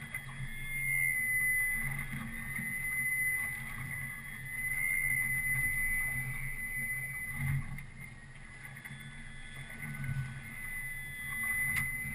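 Boat motor running steadily: a low hum with a high whine that swells and fades.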